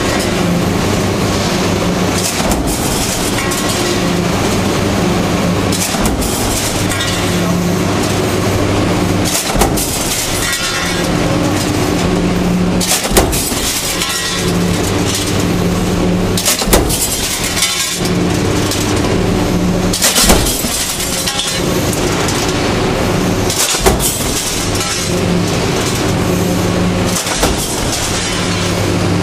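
Large mechanical stamping press with a transfer die in production, a sharp knock about every three and a half seconds as each stroke hits, over steady factory noise. A low hum starts and stops between the strokes.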